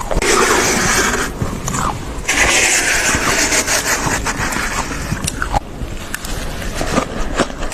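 Thick, fluffy freezer frost being scraped off the freezer wall in two long strokes, about a second and a half each, followed by smaller scattered crackly crunches.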